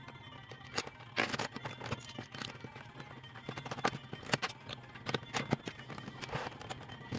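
Plastic Lego bricks clicking and clattering as they are handled and pressed onto a build: irregular sharp clicks, with short scraping rustles about a second in and again near the end.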